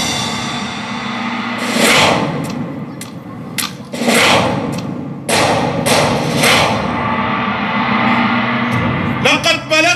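Four loud booming hits with a long echo, played over a low sustained drone through an outdoor show's sound system; the last two come close together. A man's voice begins near the end.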